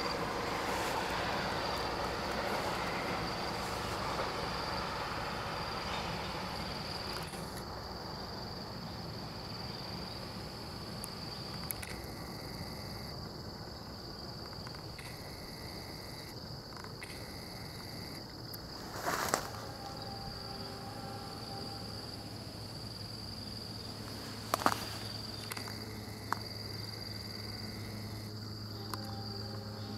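A steady high-pitched trill of insects. Under it, the rumble of a departing train fades away over the first several seconds. A low steady hum comes in about two-thirds of the way through.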